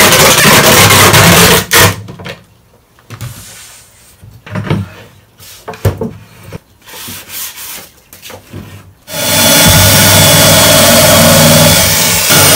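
Cordless drill driving screws into plywood: a run of about a second and a half at the start and a short burst right after. Then scattered knocks and bumps as the plywood cabinet box is handled. From about nine seconds in, the drill whirs steadily to the end.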